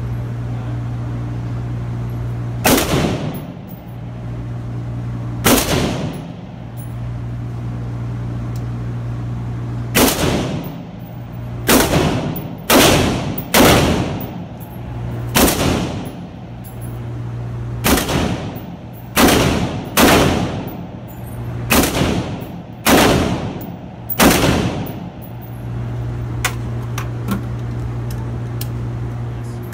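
Gunshots at an indoor range, about fifteen single shots fired at an uneven pace, most of them packed between about ten and twenty-four seconds in. Each shot rings briefly off the range's walls, over a steady low hum.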